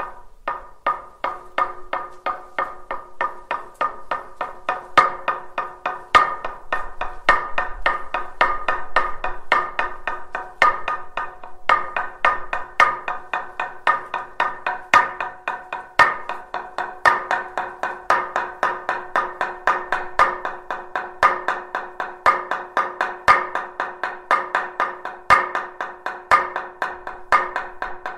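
Hand-held wooden semantron (talanto) beaten with a wooden mallet: a quick, uneven rhythm of ringing wooden knocks, about three or four a second, with louder accented strikes. This is the Orthodox monastic call to a service.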